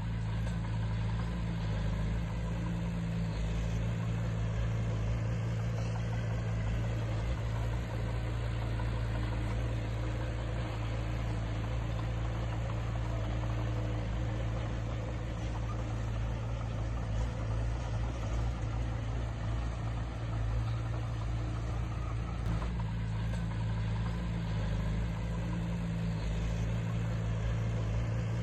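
Engine of heavy earthmoving equipment running steadily at an unchanging speed, with no revving.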